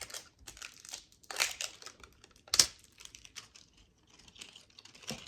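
Slime packaging being torn and crinkled open by hand: scattered rustles, with one short, sharp rip about two and a half seconds in.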